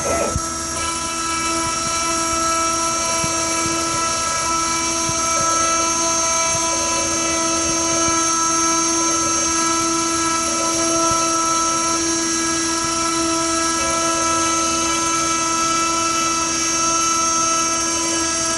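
High-speed spindle of a DIY gantry CNC router running with a steady multi-tone whine while milling a printed circuit board. A fainter tone comes and goes beneath it.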